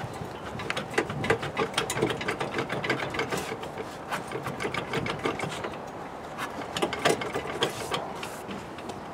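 Front wheel of a jacked-up car rocked by hand, with a rapid, irregular series of clicks and knocks from the suspension: play in a worn suspension ball joint.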